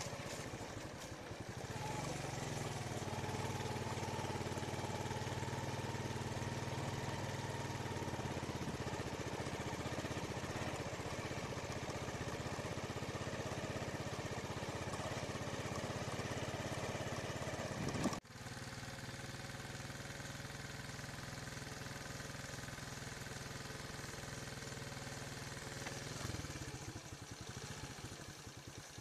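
Motorcycle engine running steadily while being ridden. About two-thirds of the way through it breaks off for an instant, then carries on a little quieter.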